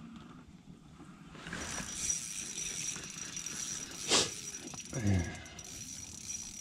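Spinning reel on an ice-fishing rod being cranked, a steady mechanical whir with a thin high whine, starting about a second and a half in. A single sharp click comes about four seconds in.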